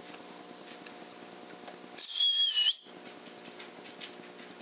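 A single short, high whistle about two seconds in, wavering slightly in pitch and lasting under a second, over a faint steady hum.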